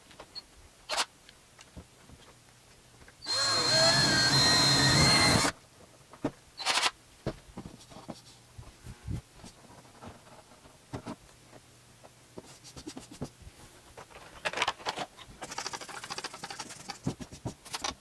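A power drill runs for about two seconds a few seconds in, with a steady high whine, boring a hole through the desk. Scattered clicks and knocks of handling follow, with a softer stretch of noise near the end.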